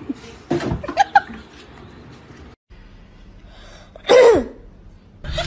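A Scottish Fold cat sneezing once, a short, sharp burst whose pitch falls away.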